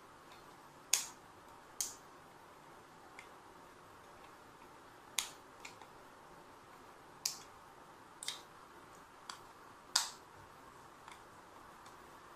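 Scattered sharp clicks, about ten at uneven intervals, from a small plastic remote-control casing and a pair of pliers being handled and worked on a table, over a faint steady hiss.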